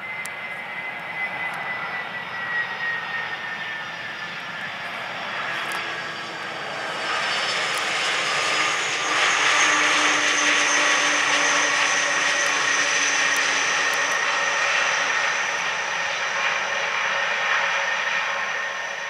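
Boeing 767-300 twin jet engines on the landing rollout: a high whine that falls slowly over the first few seconds, then a much louder rush of engine noise from about seven seconds in that holds as the airliner rolls past.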